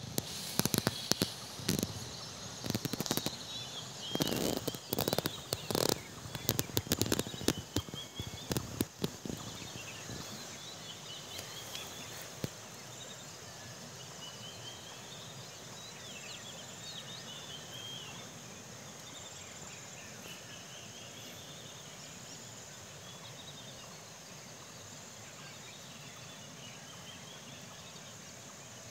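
Outdoor rural ambience with birds chirping in short repeated calls over a steady high background hum. A rapid run of irregular clicks and knocks fills the first ten seconds or so, then stops.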